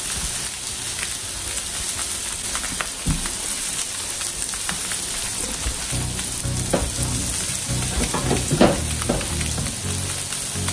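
Salmon fillets sizzling in oil on a smoke-hot cast iron griddle, a steady searing hiss as a crust forms on the fish.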